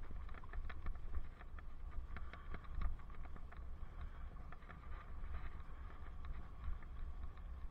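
Bicycle rolling over a dirt path: irregular small clicks and crackles of tyres on grit and the bike rattling, over a steady low wind rumble on the helmet-camera microphone.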